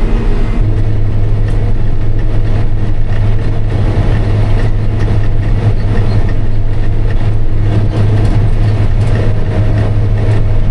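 Diesel engine of a harvesting machine running steadily under load, a strong even hum with a low drone, heard from the cab while cutting rye.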